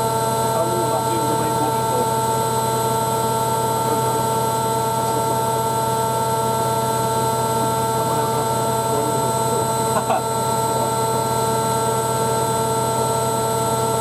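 Hoover Ecologic 1300 washing machine running mid-programme: a steady hum with several constant high whining tones, with no change in pace.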